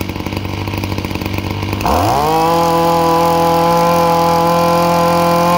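The Ryobi B16 brush cutter's 26cc two-stroke engine idling, then revved up sharply about two seconds in and held steady at high speed.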